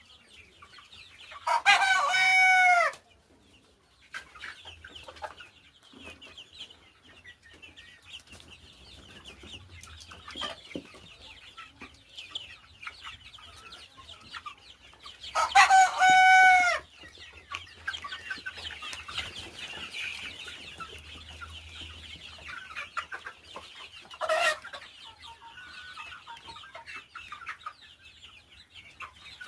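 Flock of Sonali chickens clucking and chattering continuously, with a rooster crowing twice, about two seconds in and again about fifteen seconds in, and one short loud squawk near the end.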